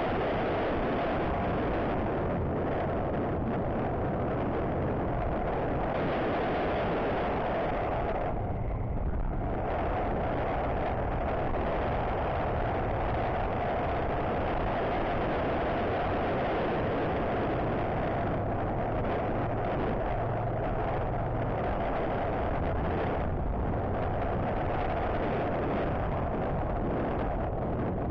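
Riding noise of a motorcycle on the move, heard through a helmet-mounted action camera in an open-back case: a steady rush of wind on the microphone with the engine running underneath. It briefly eases about eight to nine seconds in.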